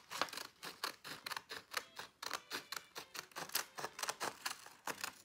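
Scissors snipping around a curve in a sheet of printer paper: a steady run of short cuts, about three or four a second.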